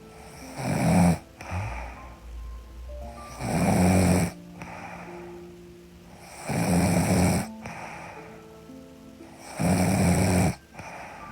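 A woman snoring in sleep, four rasping snores at a slow, even pace of about one every three seconds. Soft background music with held notes plays underneath.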